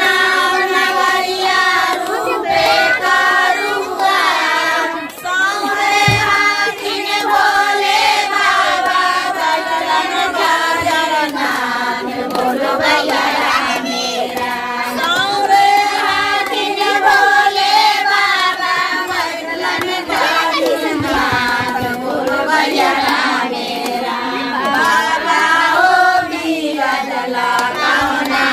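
A group of women singing a devotional folk song together in one melody, their high voices holding and gliding between notes without pause.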